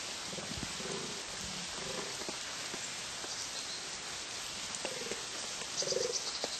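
Wild boar sow giving a run of short, low grunts, one every half second to a second, louder near the end, over a steady hiss.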